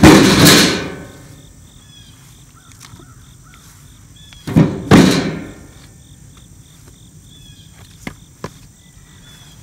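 Split firewood dropped into an Ohio Steel 9 cu ft steel lawn-tractor cart: two loud clunks about four and a half seconds apart, each with a brief ring from the steel bed, then a couple of light knocks near the end.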